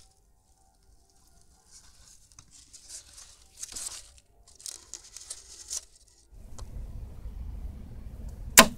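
Scratchy rustling and scraping as hands handle styrofoam and cardboard target boards, on and off for several seconds. Then a low background rumble starts, and near the end a single sharp crack from a micro crossbow shot.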